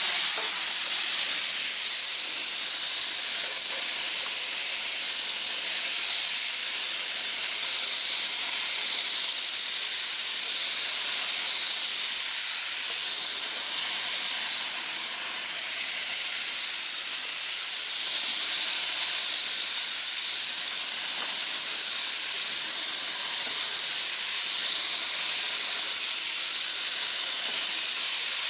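Paint spray gun hissing steadily as wood stain is sprayed onto siding, its tone wavering in slow sweeps as the gun moves.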